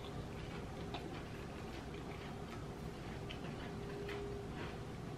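Quiet close-up eating sounds: chewing a bite of breaded fried croquette, with a few scattered faint clicks, and chopsticks stirring sauced noodles in a bowl in the latter half.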